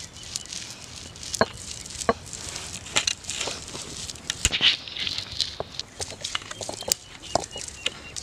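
Stone roller crushing whole coriander seeds on a stone grinding slab (ammi kal): irregular crunching and cracking with a gritty scraping rasp as the roller is rolled back and forth.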